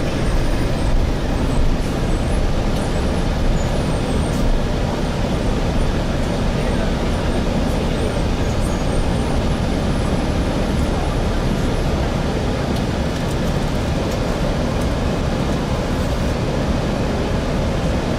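Cabin noise inside a Gillig Phantom diesel transit bus with a Voith transmission, under way: a steady mix of engine, drivetrain and road rumble, even in level throughout.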